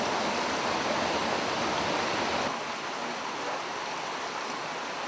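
Rushing water of a small waterfall pouring into a rocky pool, a steady hiss; about two and a half seconds in it drops suddenly to the quieter flow of the river.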